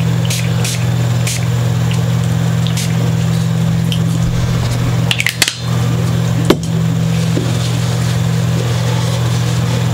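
Steady low hum throughout, with light clicks and taps from a small bottle of guitar polish being handled and dabbed onto a polishing cloth; a short cluster of clicks about five seconds in and one sharper click a second later.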